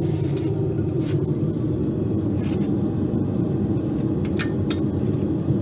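Forge running with a steady low rush, a few light metallic clicks over it.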